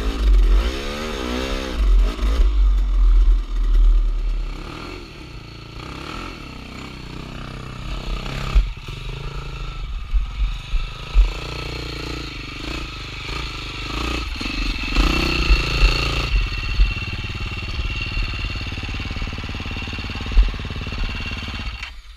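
KTM dirt bike engine revving in quick blips for the first few seconds, then running at lower revs with scattered sharp knocks and clatter as the bike works over rock ledges. The engine sound cuts off just at the end.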